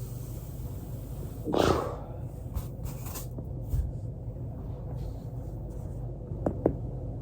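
Foam rolling: a body shifting on a foam roller, with a loud rustling noise about a second and a half in and a few faint clicks. Two short, sharp cracks come close together near the end, typical of joints popping under the roller.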